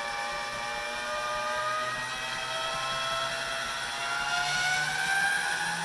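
Electric pasta machine motor whining steadily as it drives the rollers through a sheet of egg-noodle dough on the widest setting, the first pass of the dough; its pitch rises in the second half.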